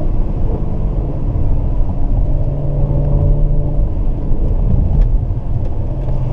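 BMW 335i's turbocharged straight-six with an AC Schnitzer rear silencer, pulling steadily in second gear: a steady exhaust drone over road noise, heard from inside the cabin with a window partly open. The drone eases slightly about four seconds in and comes back near the end.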